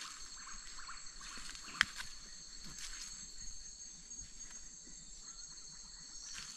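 Night insects, likely crickets, keep up a steady high chorus of several level tones. Soft crunching footsteps on dry leaf litter sound under it. A single sharp click comes about two seconds in.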